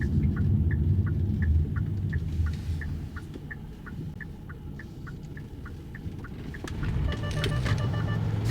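Hyundai Staria camper van driving, its engine and road rumble heard from inside the cabin, easing off in the middle and rising again later. Over it a turn-signal indicator ticks about three times a second, and a short electronic beeping sounds near the end.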